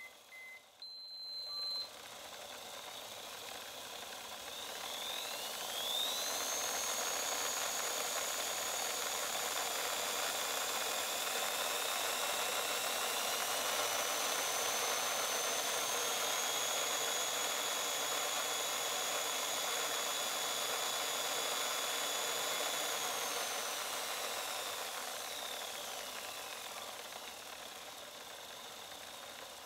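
RC-converted Tamiya Mini 4WD car with a Plasma Dash motor and 3.5:1 gears, running its wheels on a Mini 4WD Speed Checker's rollers. A high whine rises over a few seconds, holds steady at full speed for about fifteen seconds, then winds down. A short electronic beep from the speed checker comes about a second in.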